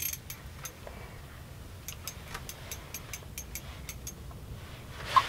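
Faint scattered clicks from a small ice-fishing reel and line being handled, over a low steady rumble, with a sharper knock near the end.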